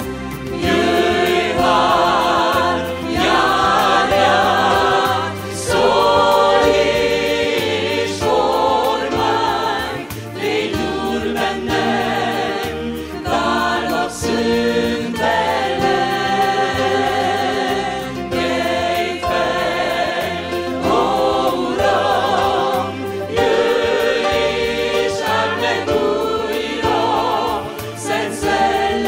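A worship choir and congregation singing a praise song, with keyboard and a moving bass line.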